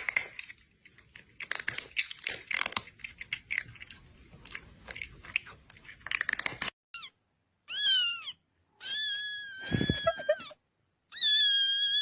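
A cat chewing and crunching food, a quick run of crisp crunches for about the first six seconds. Then a cat meowing: two short falling meows, followed by two long drawn-out meows.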